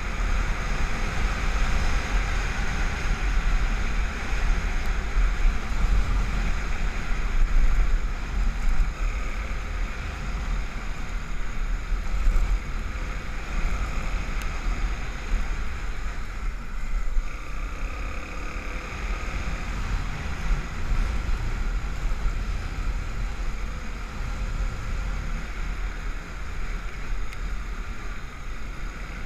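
Honda XR250 Tornado's single-cylinder four-stroke engine running steadily as the bike rides on beach sand, with wind buffeting the microphone and a low rumble throughout.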